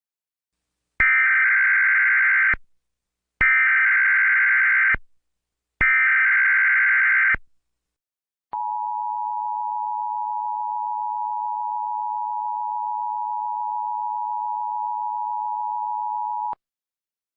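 Emergency Alert System header: three identical buzzy data bursts of about a second and a half each, then a steady two-tone attention signal held for about eight seconds that cuts off sharply.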